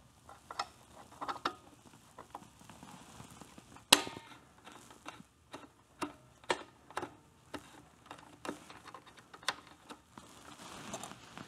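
Small metal parts and hand tools clicking and tapping as the rear brake linkage is fitted at a motorcycle's wheel by hand: irregular sharp clicks, the loudest about four seconds in.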